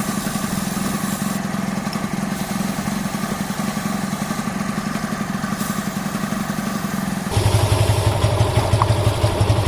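Yamaha FZ's single-cylinder engine running at low speed in first gear with the bike on its stand, driving the rear wheel and chain while the chain is cleaned. The engine's steady, rapid beat drops lower and grows louder about seven seconds in.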